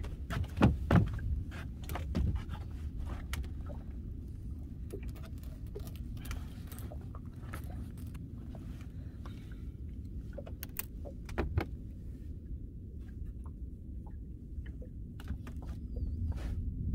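Scattered small clicks and metallic clinks of fishing tackle being handled, with a cluster about a second in and more near the end, over a steady low rumble.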